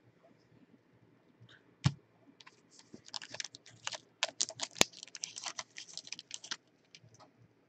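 Foil wrapper of a Panini Unparalleled football card pack being torn open and crinkled by gloved hands: a dense crackle for about three and a half seconds, with one sharp snap in the middle. A single knock comes about two seconds in, before the tearing starts.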